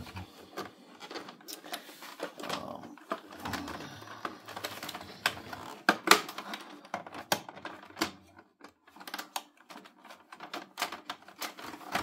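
Irregular sharp plastic clicks and taps from a Toshiba e-Studio copier's bypass feed roller assembly as it is worked back into its mounting in the bypass tray and pressed to snap in.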